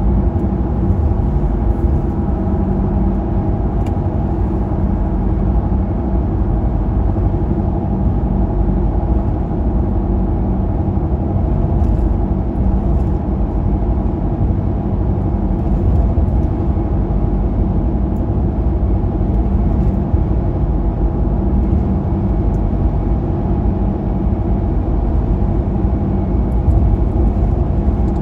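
Steady road rumble and engine hum of a car cruising at highway speed on the interstate, heard from inside the cabin.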